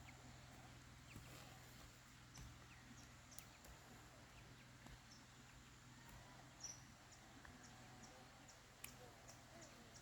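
Near silence: quiet background with a low steady hum and scattered faint ticks and chirps.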